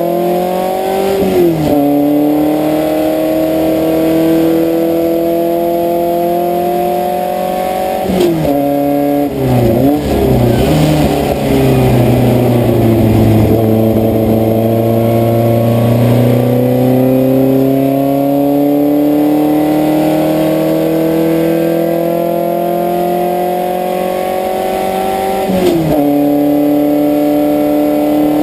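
Puma GTS race car's air-cooled Volkswagen flat-four engine at racing speed: the pitch climbs steadily under full throttle, drops at an upshift about a second and a half in, dips and blips through braking and downshifts around eight to eleven seconds in, then climbs in a long pull to another upshift near the end.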